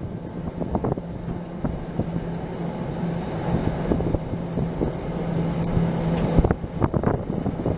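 A moving train heard from on board: the rumble of wheels on rail with scattered clicks, and a steady hum that cuts off suddenly about six seconds in.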